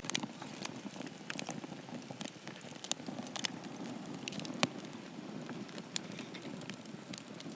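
Freshly lit wood campfire burning: a steady low rushing hiss with sharp pops and crackles about once a second as the kindling catches.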